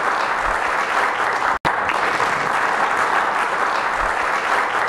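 Audience applauding steadily, with a split-second dropout about a second and a half in.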